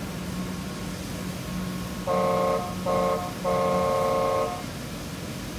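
A vehicle horn sounding three times, two short toots and then a longer one, over a steady low hum.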